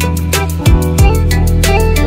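Background music with a steady beat and a sustained deep bass, with two deep drum hits that drop in pitch.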